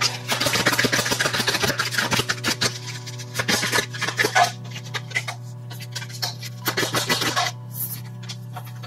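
Tarot cards being shuffled and drawn: a quick run of papery rubbing and flicking for the first four seconds or so, then scattered single card flicks.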